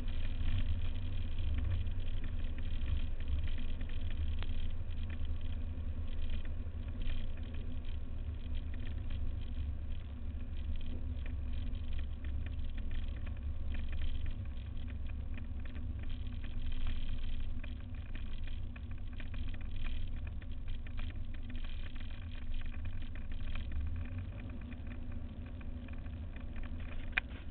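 Rutan KR-2 light aircraft's engine running steadily, heard as a constant low rumble with faint higher tones over it.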